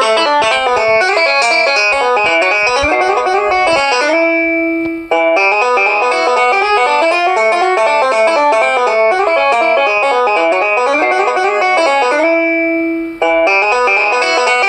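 Qphone mobile phone ringtone: a fast, plucked-sounding synthesized melody of short notes. Twice, about four and twelve seconds in, it settles on a held note, breaks off a moment later and starts again.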